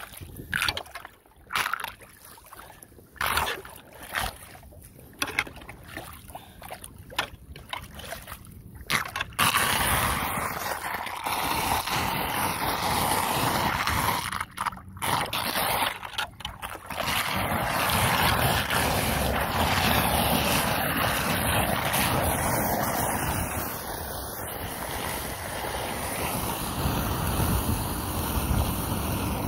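Flood water swirling and rushing down an unclogged street storm drain, draining strongly, with wind noise on the microphone. It comes in short broken gusts at first, then settles into a steady, louder rush about ten seconds in.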